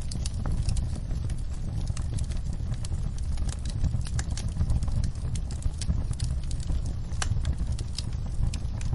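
Wood fire crackling: frequent, irregular small pops and snaps over a steady low rumble of the flames.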